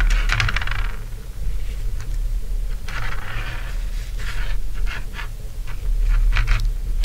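Fingers rubbing and scraping close to the microphone while tying a knot in monofilament fishing line around a lead sinker and swivel, with small hard clicks from the sinker and metal swivel knocking together.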